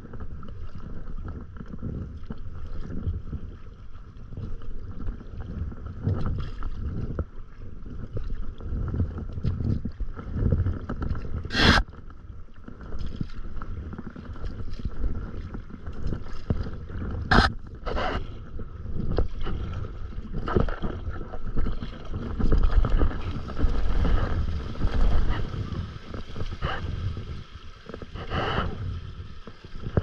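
Stand-up paddleboard under way: paddle strokes splashing and water washing along the board, over a steady low rumble of wind on the microphone. Two sharp clicks stand out, about twelve and seventeen seconds in.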